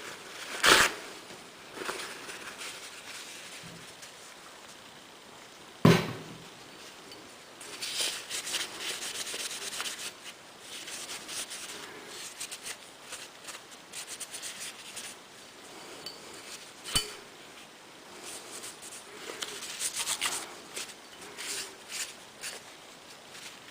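Hand cleaning of Ruger SR9 pistol parts: stretches of scratchy rubbing and scrubbing, with three sharp knocks of hard parts set down or tapped, one near the start, one about six seconds in and one about seventeen seconds in.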